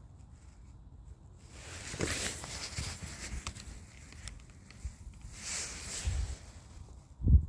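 Rustling and handling noise from a hand-held phone being moved about, starting about a second and a half in, with many small clicks and a loud bump just before the end.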